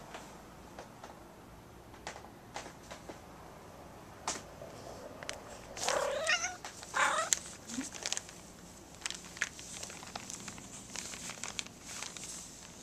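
A domestic cat lets out two short, wavering cries about a second apart, midway through. Light crinkling of the plastic bag it is lying on runs throughout.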